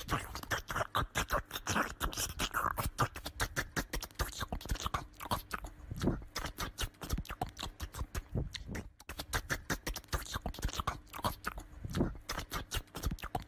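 A small dog's paws and claws scrabbling and knocking against a wooden door as it jumps at it: a rapid, irregular run of taps and scrapes, several a second.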